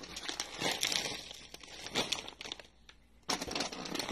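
Plastic snack packets crinkling and rustling as they are handled and lifted out of a packed box, in irregular bursts with a short lull a little before the end.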